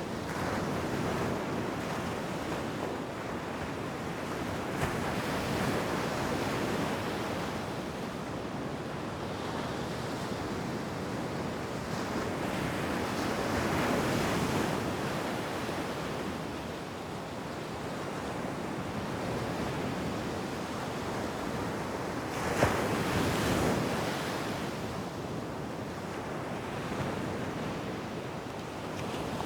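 Ocean surf washing onto a beach, waves swelling and ebbing every several seconds, with a brief sharper splash about two thirds of the way through, and some wind on the microphone.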